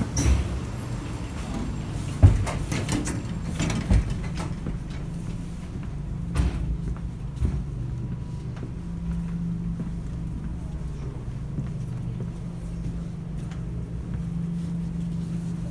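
Interior of an ED4M electric commuter train: the carriage's steady low hum and rumble, with a few sharp knocks in the first four seconds.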